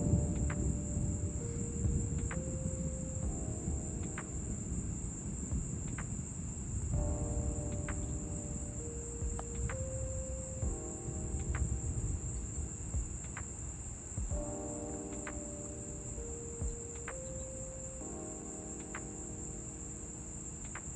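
Crickets chirring in a steady high drone, over soft background music of sustained chords that change every few seconds. A low rumble, loudest at the start, fades away over the first several seconds.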